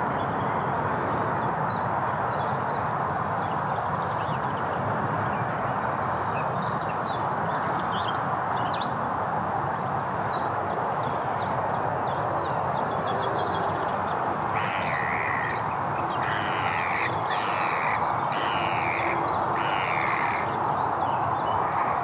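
A crow cawing about five times in a row near the end, over small birds chirping throughout and a steady rushing background.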